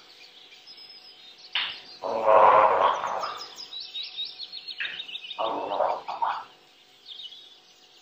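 African grey parrot making harsh, gargling vocalizations: a loud rough call about two seconds in, a run of thin high chirps, then a second, shorter rough call around the middle.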